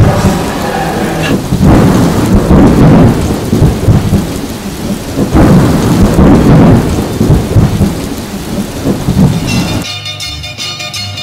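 Thunderstorm: steady rain with rolling thunder that swells and fades several times, loud. Music comes in near the end.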